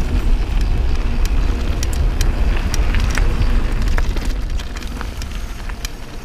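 Mountain bike rolling down a gravel track: wind rumble on the helmet camera's microphone, tyres crunching, and frequent sharp clicks and rattles of stones and the bike. It quietens after about four and a half seconds as the bike slows.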